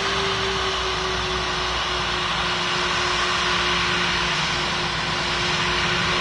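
Steady engine noise: a continuous rush with a clear hum that slowly drops in pitch.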